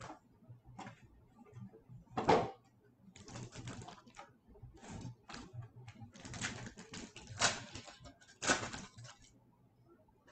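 Hands handling an O-Pee-Chee Platinum hockey card box and tearing open a card pack: irregular bursts of cardboard and wrapper rustling and crinkling, loudest about two seconds in and again near the end.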